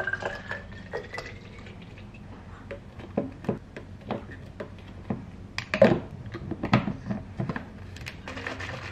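Water pouring from a plastic gallon jug into a plastic baby bottle, the pitch rising as the bottle fills, stopping about a second in. Then a series of sharp clicks and taps as the bottle and its cap are handled, the loudest around the middle.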